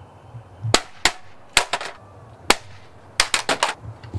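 A series of about a dozen sharp, irregular knocks and cracks, some coming in quick runs of three or four, over a low steady rumble.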